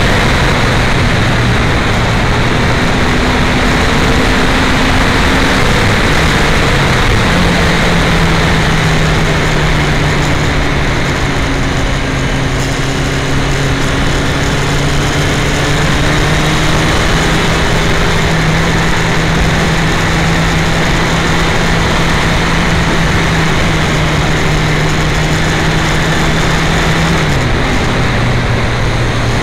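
Wind buffeting an uncovered camera microphone on a moving Yamaha FZ1 motorcycle, over the inline-four engine's steady drone. About seven seconds in the engine note rises to a higher pitch and holds, then drops back suddenly near the end.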